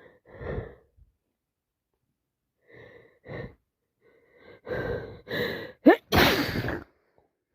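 A person's sneeze from a cold and allergies: a few short breaths, then quick hitching in-breaths build up, and one loud sneeze near the end.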